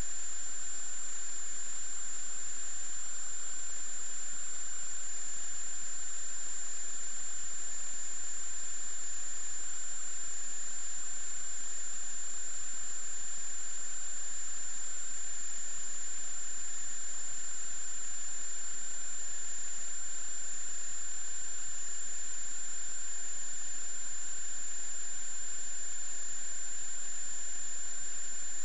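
Steady electrical hiss with a constant high-pitched whine, unchanging throughout: noise from the sewer inspection camera's recording rather than any sound from the pipe.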